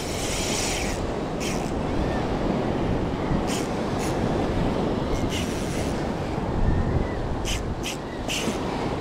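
Surf breaking and washing over a rocky shore, with wind buffeting the microphone and a few brief high hisses scattered through.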